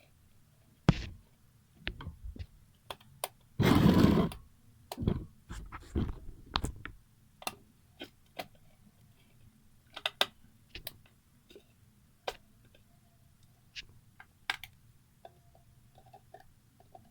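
Handling and screwdriver noises while fitting a wall socket with self-tapping screws: scattered clicks and taps of the screws, screwdriver and socket plate, with a louder scraping rustle about four seconds in.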